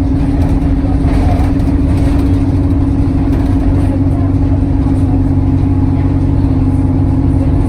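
Alexander Dennis Enviro 200 single-deck bus's diesel engine running steadily under way, a constant loud drone.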